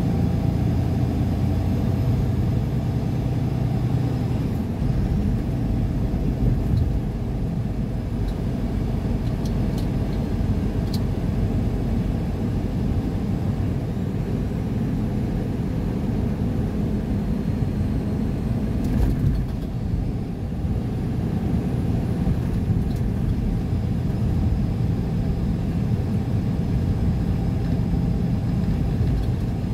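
Car cruising at a steady speed on a highway: steady engine hum and tyre road noise heard from inside the cabin.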